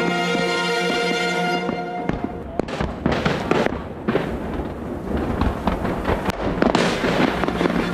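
Music for the first two seconds or so, then aerial fireworks going off: a dense run of sharp bangs and crackling shell bursts.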